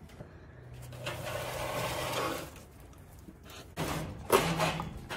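Wooden nesting box scraping and sliding against a wire rabbit cage as it is pulled out, with a sharp knock a little over four seconds in.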